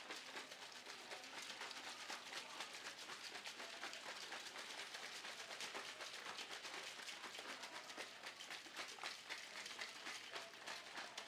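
Whey protein drink being shaken hard in a plastic shaker bottle with a snap-on lid: rapid sloshing and clattering.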